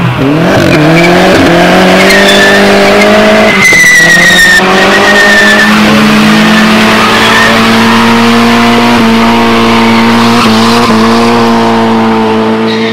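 Volkswagen Golf Mk4 doing a burnout. The engine revs up sharply in the first second or so, then is held at high, nearly steady revs over a continuous screech of spinning tyres, easing off slightly near the end.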